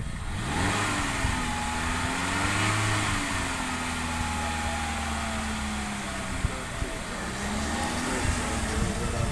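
Small car's engine running under light throttle as it pulls past, its pitch climbing for the first few seconds, easing down, then climbing again near the end.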